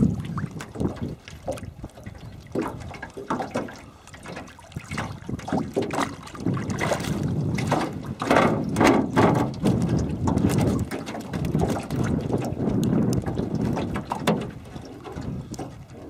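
Water splashing and trickling against an aluminum jon boat's hull, with scattered light knocks; the splashing is busiest about halfway through.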